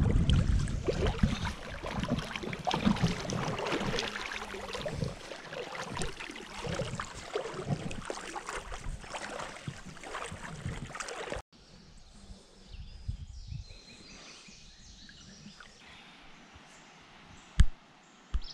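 Wading through a river in waders: water sloshing and splashing unevenly around the legs with each step, loud and close. About eleven seconds in it cuts to a much quieter stretch of faint river ambience, with a couple of short sharp knocks near the end.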